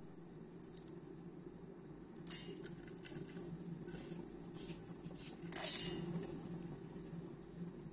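Whole spices, black peppercorns and cardamom pods, dropped by hand into a stainless steel mixer-grinder jar: a scatter of light clicks and rattles, the loudest about two-thirds of the way through, over a steady low hum.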